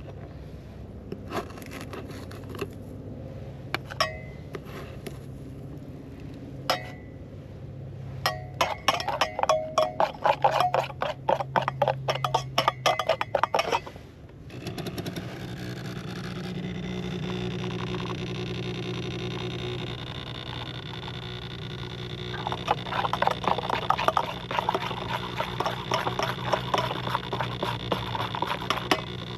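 A metal spoon clinks on a stainless steel mug and a creamer jar: scattered taps at first, then rapid stirring for several seconds. About halfway through, a single-serve coffee maker's pump hums steadily for some seven seconds as it brews into the mug. Near the end, brisk stirring sets the spoon clinking against the steel again.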